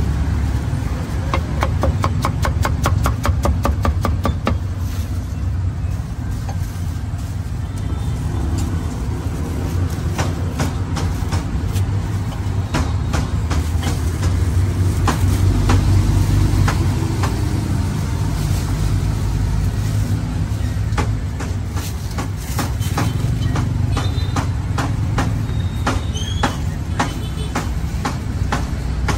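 Cleaver chopping roasted duck and pork in quick runs of sharp strokes, the fastest run about six or seven chops a second near the start, over a steady low rumble.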